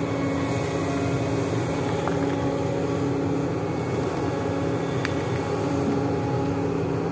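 Sany SY365H excavator's diesel engine running steadily under working load, with a faint steady whine over the drone as the bucket pushes through roots and brush. A single sharp click about five seconds in.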